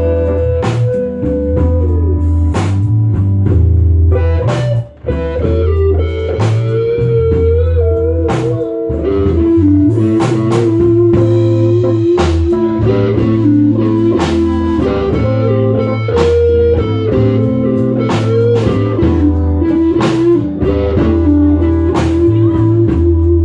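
Live blues band: an electric guitar plays a lead of long, wavering, bent notes over a bass guitar line and a drum kit keeping time.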